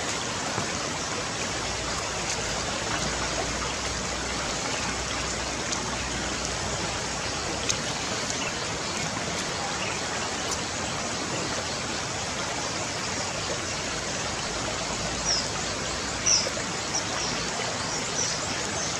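Steady rushing of flowing water, with a few short high chirps near the end.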